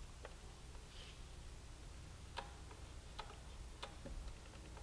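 Faint, scattered light metal clicks, about five over a few seconds, from a wrench on the rear brake caliper's bleeder screw during brake bleeding, over a low steady hum.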